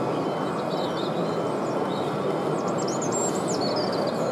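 Steady hubbub of a busy exhibition hall full of people, with a few high bird-like chirps about a second in and again past the middle.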